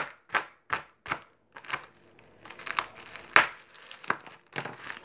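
Plastic bubble wrap crinkling as it is pulled and crumpled by hand, in a run of short rustles with a brief lull partway through.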